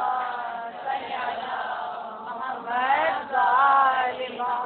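A women's congregation reciting salawat together in a chanted unison, many voices at once, answering the preacher's call to send blessings.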